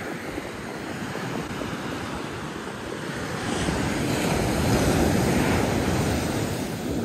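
Ocean surf breaking and washing up a sandy beach, with wind buffeting the microphone. It swells louder a few seconds in as a wave rolls in, then eases.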